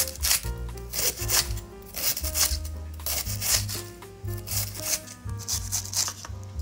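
Kitchen knife slicing through cabbage on a wooden cutting board, a crisp stroke about three times a second, over background music with a bass line.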